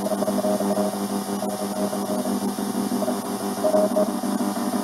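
Shortwave radio signal through a regenerative receiver's speaker: a tone keyed on and off in short beeps, taken for Morse code, over steady low droning tones and static hiss.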